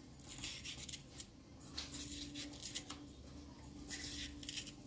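Kitchen knife slicing a green sweet pepper into strips on a bamboo cutting board: a string of quiet, crisp cuts at an uneven pace.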